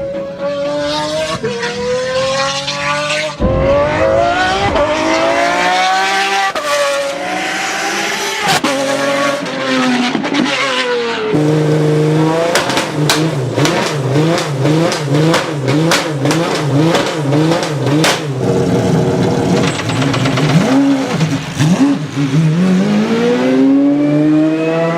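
Pagani Zonda Revolution's 6-litre V12 revving up and down through the gears with a high-pitched scream. In the middle it blips the throttle over and over in quick succession, with sharp exhaust pops and bangs, and near the end it climbs in one long rising rev.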